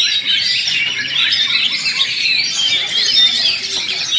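Many oriental magpie-robins singing at once in a dense, continuous chorus of fast, overlapping warbles, whistles and chirps.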